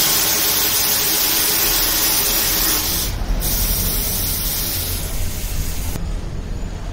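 Compressed air hissing from an air hose held at a truck tyre, cutting out briefly about three seconds in and stopping about six seconds in, over a low steady hum.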